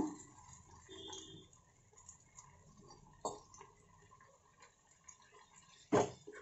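Faint, scattered ticks and small pops from a watery tomato-and-greens curry cooking in a pan over a gas flame. About six seconds in, a steel spoon knocks sharply against the pan.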